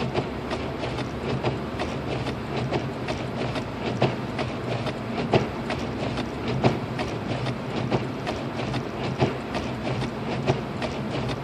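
Cabin noise of a Lexus IS250 AWD driving on a snowy road: steady road and engine rumble, with sharp, regular ticks about every 1.3 s and fainter ticks between them, fitting the hazard flasher that is switched on.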